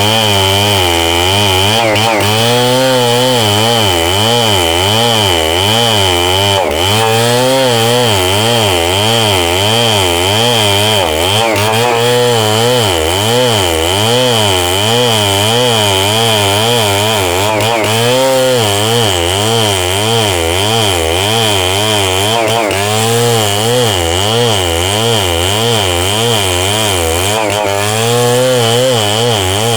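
Stihl 070 two-stroke chainsaw running under load as it cuts red meranti wood. Its pitch rises and falls steadily, about twice a second.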